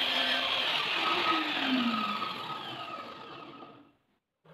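Electric miter saw's motor and blade running, then spinning down after the trigger is released. The whine falls steadily in pitch and fades out about four seconds in.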